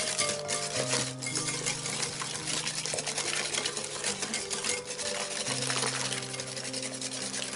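Wire whisk beating pumpkin batter in a bowl: a continuous quick scraping clatter of the wires against the bowl, over soft background music with held notes.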